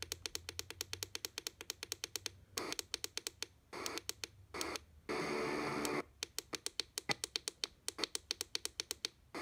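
Hart HPAD01 portable radio being tuned down the FM band with the tune button held. A rapid run of clicks, several a second, as it steps from frequency to frequency, broken by short snatches of static or station sound. The longest snatch comes about five seconds in.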